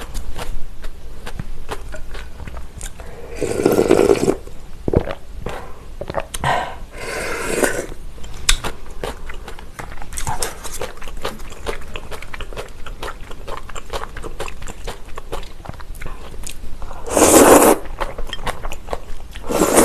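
A person eating cold agar-agar noodles in soy milk soup: steady crunchy chewing with many small clicks, and three loud slurps, about four seconds in, about seven and a half seconds in, and near the end as noodles are slurped from the bowl.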